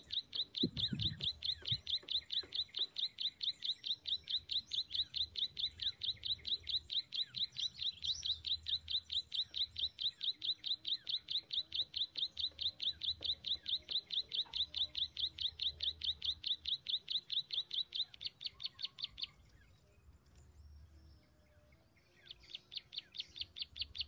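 Ciblek sawah (prinia) chirping call, a short chirp repeated very evenly about five times a second, used as the lure call for trapping. It stops suddenly a few seconds before the end, and fainter chirps return near the end.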